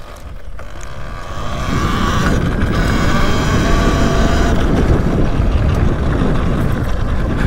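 Electric dirt bike (Talaria Sting R MX4) accelerating on a trail: wind rushing over the rider's microphone and the ride's rumble build over the first two seconds as speed rises, then hold steady, with a faint whine from the electric motor.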